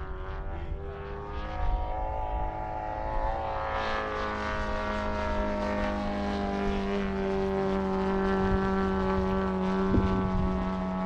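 Radio-controlled model airplane's engine and propeller running steadily. Its pitch shifts about four seconds in and then holds, as a second steady tone joins it.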